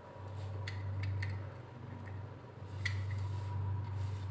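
A few faint metallic clicks as a small hand-held thread tap is turned in the screw lug of a metal electrical switch box, re-cutting its worn threads, over a low steady hum.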